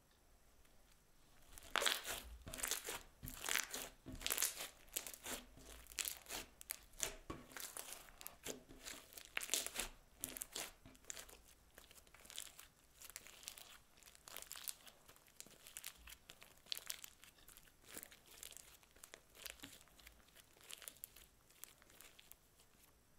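Crunchy slime studded with small beads being stretched, folded and kneaded by hand, giving a dense run of sharp crackles and pops. The crackling starts about two seconds in, is busiest over the next several seconds, then thins to scattered pops.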